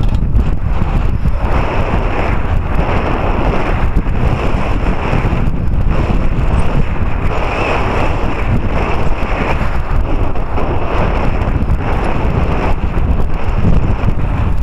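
Wind buffeting the microphone: a loud, steady rumbling noise that flutters throughout.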